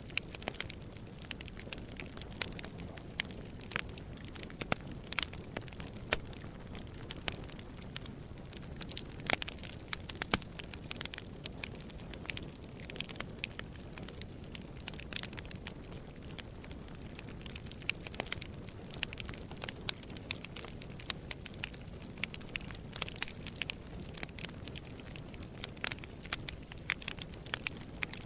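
Wood fire burning in a fireplace, crackling and popping irregularly over a soft steady rumble of the flames.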